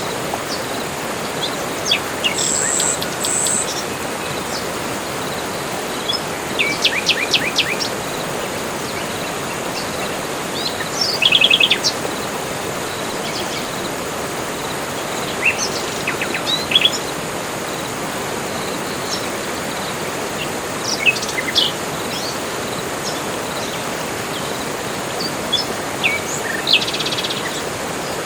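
Forest birds calling in short, separate phrases every few seconds, several of them quick trills, over a steady background hiss.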